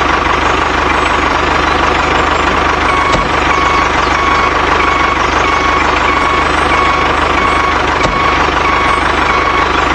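A small motor-driven machine running steadily, with a repeating electronic beep from about three seconds in.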